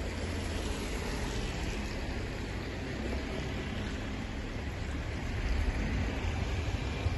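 Wind buffeting a phone's microphone outdoors: a steady, uneven low rumble with a hiss of wet street noise behind it.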